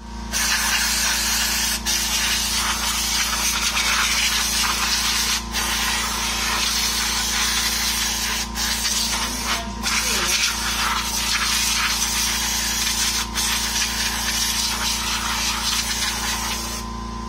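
Aerosol brake cleaner hissing steadily out of the can's red straw as it is sprayed over a drum brake's wheel cylinder, shoes and backing plate, with a few very brief breaks in the spray.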